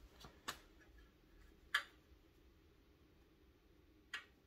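A few light, scattered clicks and taps from breather hose and fittings being handled around the engine, the sharpest a little under two seconds in.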